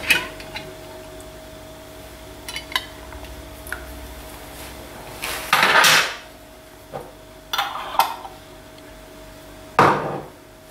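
Metal twist-off lids clinking and scraping on glass jars as they are screwed on loosely, in a few separate bursts with small clicks between them.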